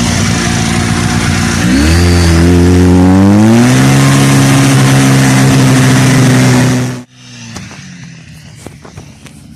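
A snowmobile's two-stroke RMZ-640 engine runs steadily, drops in pitch, then revs up as it accelerates and holds a higher, even speed. About seven seconds in the sound cuts off abruptly, leaving quieter noise with a few clicks.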